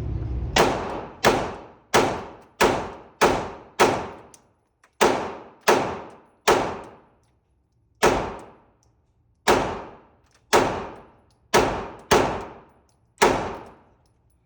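A string of about fifteen single gunshots fired one at a time at an uneven pace, roughly one every half-second to second and a half, each shot sharp with a short ringing tail.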